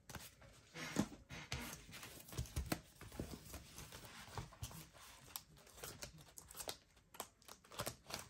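Clear plastic zip pouches in a ring-binder cash organizer crinkling and rustling as they are handled and flipped, with scattered soft knocks and clicks of the binder.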